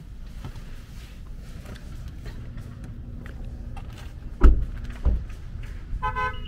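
A car door thuds shut about four and a half seconds in, followed by a second thump half a second later, over a steady low hum. A short pitched beep sounds near the end.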